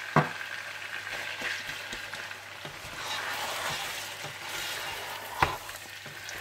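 Mutton pieces sizzling in hot desi ghee with onions and ginger-garlic paste while being stirred and sautéed. Two sharp knocks sound over the steady sizzle, one just after the start and a louder one about five and a half seconds in.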